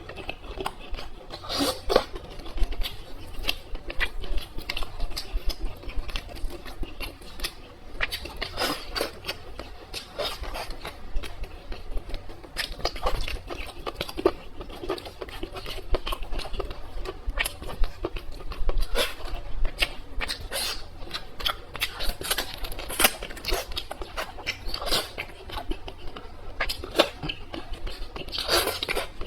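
Close-miked eating sounds: chewing with wet mouth noises and frequent sharp crackly clicks throughout.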